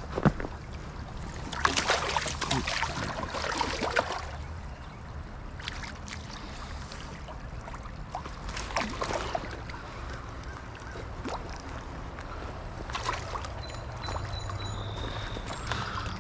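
Running creek water with several bursts of splashing as a hooked trout thrashes at the surface, the longest about two seconds in.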